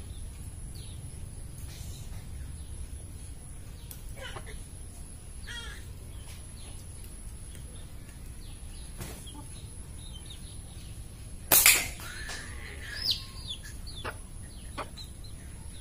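Slingshot with tapered flat rubber bands fired once: a single short, sharp snap of the released bands about eleven and a half seconds in.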